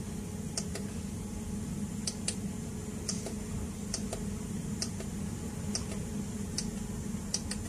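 Push buttons on a hybrid solar inverter's control panel clicking as they are pressed, about ten short clicks at an uneven pace, some in quick pairs, while a setting value is stepped up and down. A steady low hum runs underneath.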